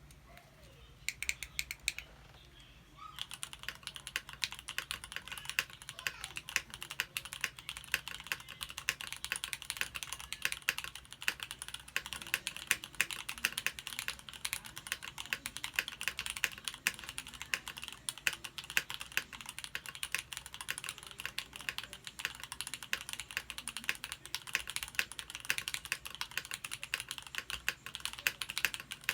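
Typing on a Tofu60 mechanical keyboard with lubed SP-Star Meteor White switches, an aluminium plate, case foam and double-shot PBT Cherry-profile keycaps. A few keystrokes come first, then a short pause, then steady fast typing from about three seconds in. A low steady background hum runs underneath.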